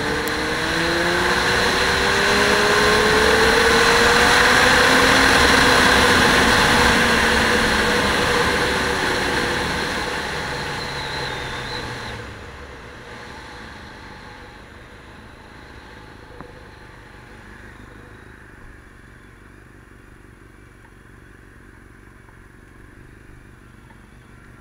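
A motor vehicle's engine goes past: it grows louder with its pitch climbing, then drops in pitch and fades away about twelve seconds in, leaving a faint steady background.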